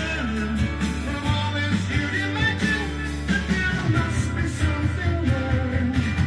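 Rock-and-roll music with singing, from a vinyl record playing on a Dual 1229 idler-drive turntable.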